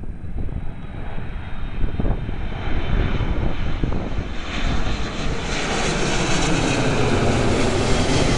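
Airbus A330-200 jet airliner's twin turbofan engines on landing approach, growing from a distant rumble to a loud roar about five seconds in as it passes low overhead, with a sweeping whoosh in the roar. Wind buffets the microphone throughout.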